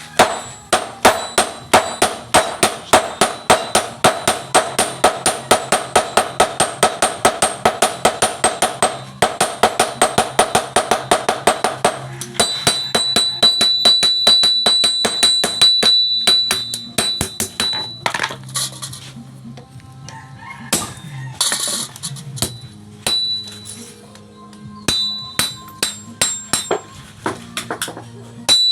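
Hammer striking metal in a steady rhythm of about four blows a second for the first twelve seconds, then lighter, sparser and more irregular blows, with music underneath.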